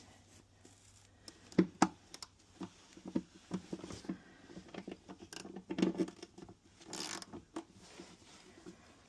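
Irregular clicks, knocks and rustling from hand-tool work on a car's interior trim while a 10 mm bolt is taken out. Two sharp knocks come about one and a half seconds in, a cluster of clicks follows around six seconds, and a brief scraping rush comes about a second later.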